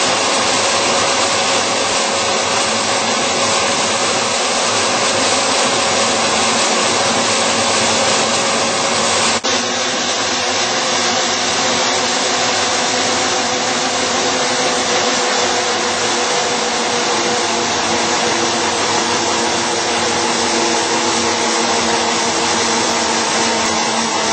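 Dahlstrom coil slitting line running, slitting sheet metal into narrow strips: a loud, steady machine noise with a few steady hum tones underneath. A brief break about nine seconds in.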